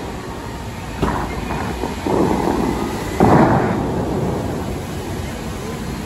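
Bellagio fountain's air-powered water shooters firing: three sudden deep booms about a second apart, the last the loudest, each fading out as the water columns rise and fall.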